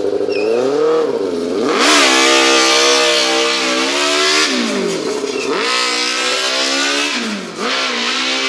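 Four-cylinder motorcycle engine in a custom two-seat off-road buggy, revving hard on a test run. The revs drop and climb again three times, screaming up to high revs about two seconds in.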